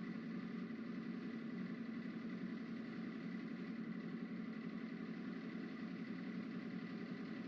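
A steady low mechanical hum with a faint high tone above it, unchanging throughout.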